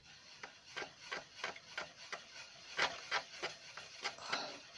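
Paintbrush stirring a runny paint wash in a paint palette: quick, repeated scrubbing strokes of bristles against the palette, about four a second.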